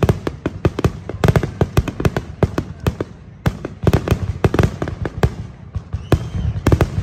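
Aerial fireworks display: a rapid, irregular string of shell bursts, several bangs a second, thinning briefly about three seconds in and again just before six seconds.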